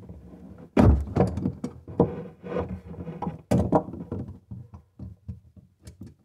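Channel-lock (tongue-and-groove) pliers knocking and clacking against the plastic sink drain pipe and its adapter nut as they are fitted and worked onto the nut. There is a string of irregular clunks and taps, loudest about a second in and again a little past the middle, then smaller taps.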